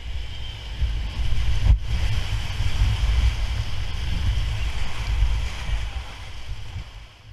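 Whitewater rushing and splashing against an inflatable raft as it runs a rapid, with a heavy low buffeting of water and wind on the microphone. The noise fades near the end.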